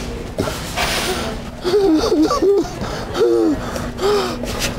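A person laughing breathlessly in a few short bursts of gasping, giggling sounds.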